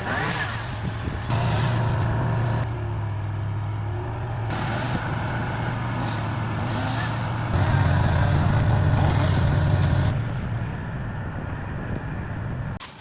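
Boom truck's engine running steadily, growing louder twice under load, with bursts of hiss coming and going over it.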